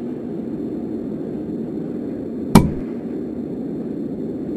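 A single sharp bang about two and a half seconds in, over a steady low rumble.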